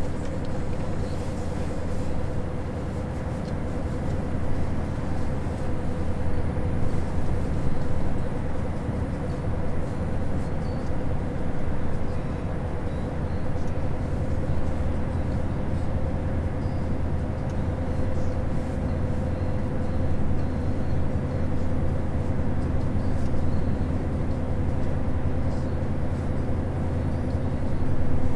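Scania truck cruising at a steady speed, heard from inside the cab: an even engine drone with a constant hum, over road and tyre noise.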